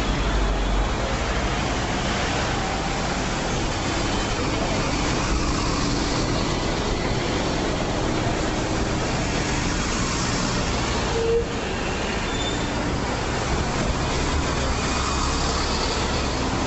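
Busy road traffic, with double-decker buses passing close by: a steady low engine rumble and road noise, broken briefly about eleven seconds in.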